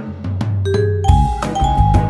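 Intro music: a drum beat with a bass line and short pitched melody notes.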